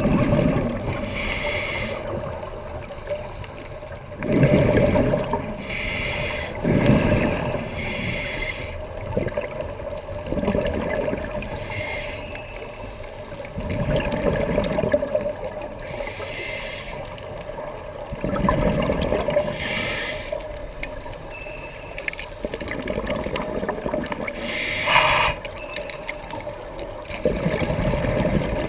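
Scuba diver breathing through a regulator underwater: a hissing inhale and a gurgling rush of exhaled bubbles, repeating every few seconds.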